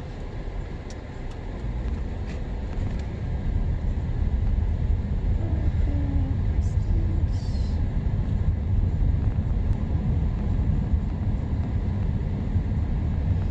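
Road and engine noise of a moving car heard from inside, a steady low rumble that grows louder over the first four seconds and then holds.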